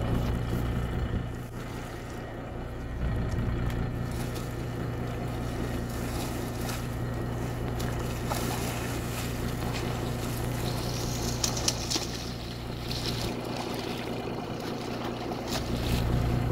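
A fishing boat's engine runs with a steady low hum while a hooked mahi-mahi (dolphinfish) thrashes and splashes at the surface beside the hull as it is netted. The splashing is loudest about two-thirds of the way in.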